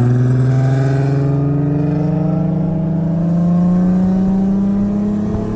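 Car engine pulling at full throttle in a roll race from 40 mph, its pitch rising slowly and steadily as it climbs through a gear.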